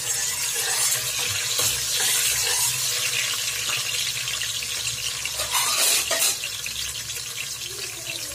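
Cashews, raisins and carrot pieces deep-frying in hot oil in a steel pot, sizzling steadily, with a slotted spoon stirring them at the start and a few short scrapes against the pot.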